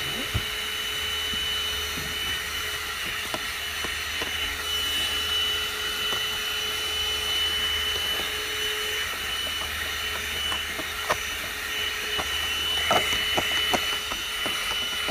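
AGARO CV1077 handheld car vacuum cleaner running steadily with a high whine while its nozzle sucks at the floor carpet. It makes a few light knocks as the nozzle is moved, and these come more often about two seconds before the end.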